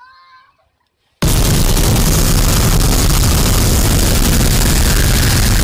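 Splash-pad tipping-bucket fountain dumping its water: a sudden loud rush of gushing water about a second in, with a heavy low rumble, running on steadily.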